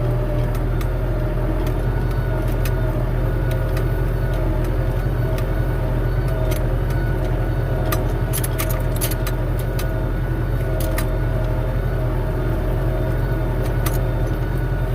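Tractor engine running steadily with a steady whine over it, while moving a round bale on a front-loader bale spear. Scattered clicks and rattles, thickest about halfway through.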